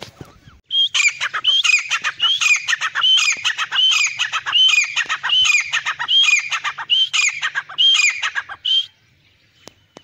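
Grey francolin calling: a loud, rapid series of repeated phrases, about two a second. It starts about a second in and stops about a second before the end.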